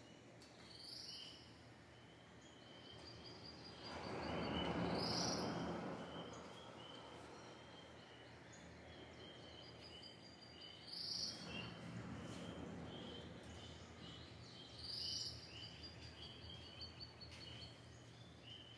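Birds calling, one with a steady run of short chirps, over the faint wash of the sea. The wash swells loudest a few seconds in and again about halfway through.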